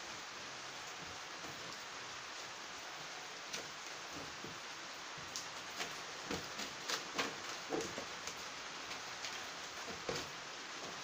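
Light knocks, clicks and scrapes of a plastic exhaust fan being pushed by hand into its hanging metal frame, coming thickest about halfway through, over a steady hiss.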